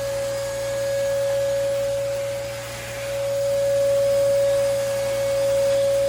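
Hoover PortaPOWER lightweight vacuum cleaner running steadily while vacuuming a couch, its motor giving a constant whine over a rushing airflow. The level dips briefly about halfway through and then rises again.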